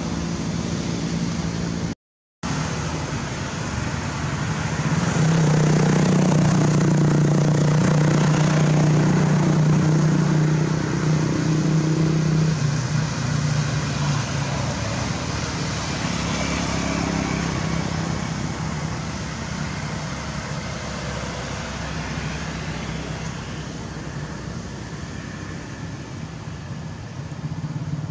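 Motor vehicle engine running steadily, its hum growing louder about five seconds in and easing off again after about thirteen seconds. The sound cuts out completely for a moment about two seconds in.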